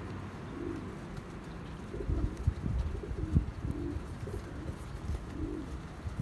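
Domestic pigeons cooing, short low coos repeating every second or so. A few low knocks and rustles of handling about halfway through.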